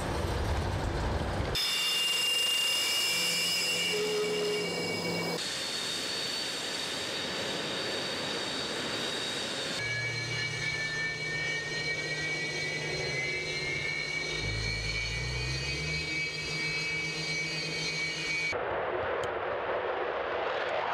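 Sukhoi Su-27 fighter jet engines across several edited shots: a steady high turbine whine, then from about halfway a whine rising slowly as the engines spool up. Near the end it gives way to a broad jet roar as the fighters fly past.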